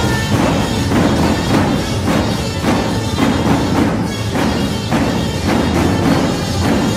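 Albanian wedding music on tupan, large double-headed bass drums, beating a steady rhythm of about two strokes a second, with held melody tones over the drumming.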